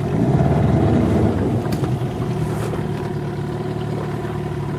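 A boat's engine running steadily with an even drone, a little louder and busier in the first second or so.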